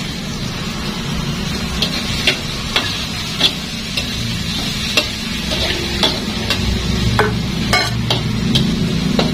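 Metal spatula stirring spice paste and chopped spring onions in a wok, with irregular clinks and scrapes of metal on the pan over a steady frying sizzle.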